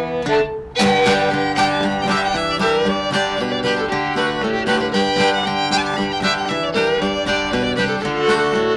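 Bluegrass fiddle and acoustic guitar playing an instrumental passage: a fiddle melody over regularly picked guitar chords, with a brief break about half a second in before the tune carries on.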